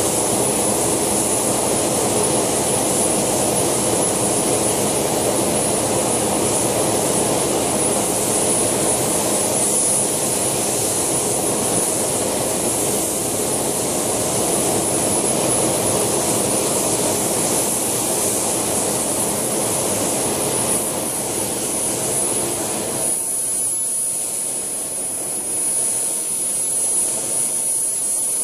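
JetCat PHT2 helicopter turbine running in an RC scale Alouette II model, with its main rotor turning. It makes a steady high whine over a broad rushing noise. About five seconds before the end, the lower part of the rushing noise drops away.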